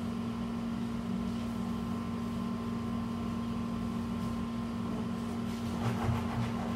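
Steady mechanical hum with a constant low tone. A short burst of cardboard handling comes about six seconds in.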